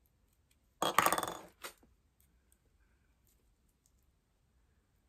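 A brief rattling clink about a second in, then a shorter one: small metal parts, a tool or an aglet, knocking and scraping against a hard work surface.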